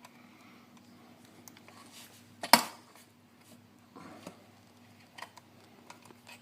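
Small metal clicks and clinks of hands working a throttle cable into a motorcycle carburetor's linkage, with one sharp metallic clank about two and a half seconds in and a few lighter clicks after it.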